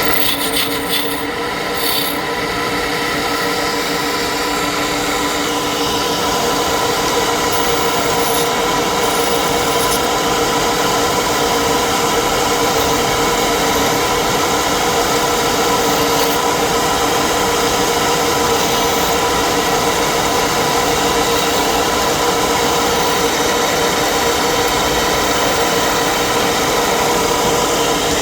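Wood lathe running steadily with a constant motor hum, while a tool rubs and rasps against the spinning wood.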